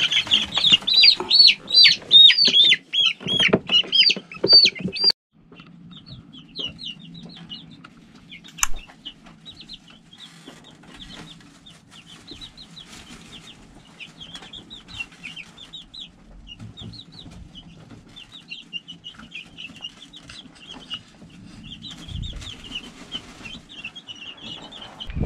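Young chickens peeping: loud, quick, repeated peeps for about the first five seconds, then after a sudden drop softer peeping and trilling over a steady low hum.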